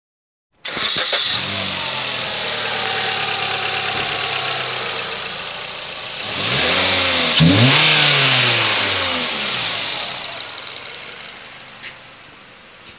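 2010 Suzuki Kizashi's 2.4-litre four-cylinder engine on a test run, idling steadily, then revved up and back down twice in the middle before settling and growing quieter near the end. The seller reports the engine tested good.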